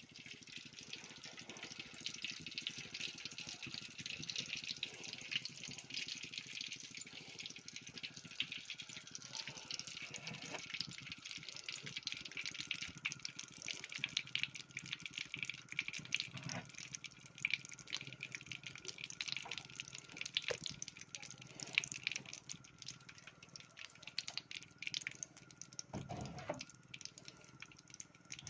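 Desi ghee heating in a kadhai, sizzling faintly with a steady patter of tiny crackles and pops as it starts to get hot.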